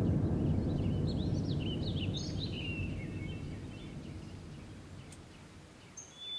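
A deep, noisy rumble that fades steadily away, with small birds chirping high above it, mostly in the first few seconds.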